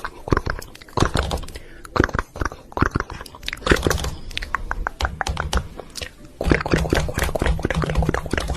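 Close-up chewing and biting of something crunchy: dense sharp crunches in quick runs, easing briefly a couple of times.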